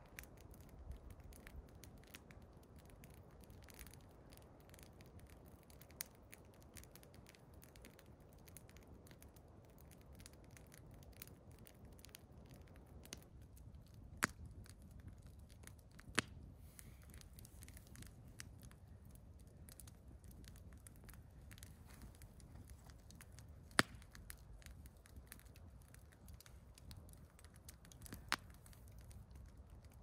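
Wood campfire crackling quietly, with many small ticks and four sharper pops spread through: a few seconds apart in the middle, then two further apart near the end.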